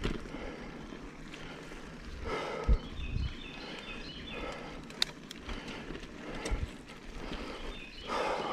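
Mountain bike rolling along a dirt forest trail: tyre rumble and rattling of the bike, with a few sharp thumps over bumps, the loudest about a third of the way in. Birds sing faintly in the background.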